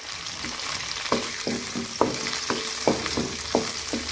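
Tomato, small onions and curry leaves frying in sesame oil in a kadai, sizzling steadily, being cooked down until the tomato turns mushy. From about a second in, a wooden spatula stirs and scrapes the pan in quick strokes, about two or three a second.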